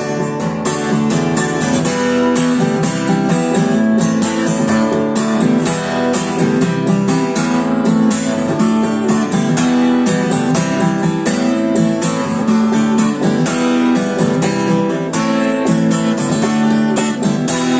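Strummed guitar playing the instrumental ending of the song, with dense, regular strokes and no singing.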